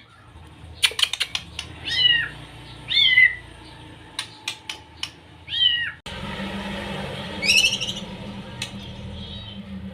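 Young white-rumped shama calling: drawn-out, mewing, arched calls about a second apart, mixed with sharp clicking notes. Near the end comes a quick series of rising notes.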